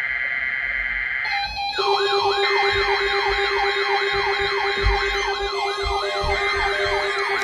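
A steady weather radio warning alarm tone. About a second in, an electronic siren starts yelping, about three rising wails a second, over a steady lower tone.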